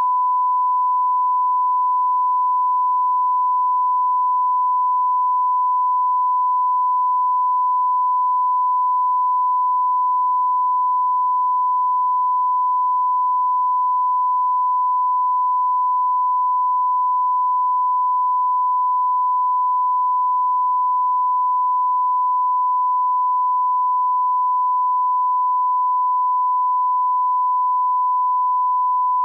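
Steady 1 kHz reference tone, a single pure pitch held without a break at constant level. It is the line-up tone that accompanies colour bars at the head of a programme tape, used to set audio level.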